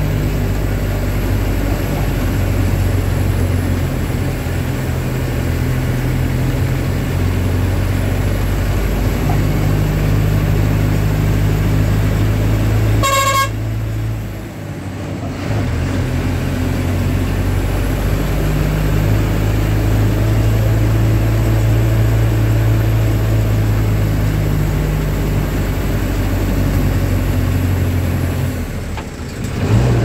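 Vehicle engine running steadily, heard from inside the cabin while driving, with one short horn toot about 13 seconds in. The engine sound drops briefly twice, just after the toot and near the end.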